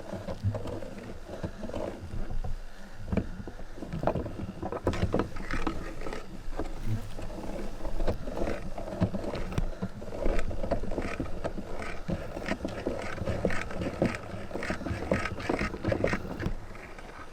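Meat grinder running with soap being fed through it: a low motor rumble under dense, irregular crackling and knocking as the soap is crushed, busier from about four seconds in.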